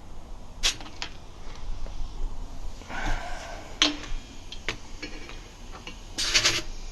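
Short hisses of air at a motorcycle tire's valve stem as an air chuck and pressure gauge are pressed on while the tire is topped up, mixed with a few clicks; the longest, loudest hiss comes near the end.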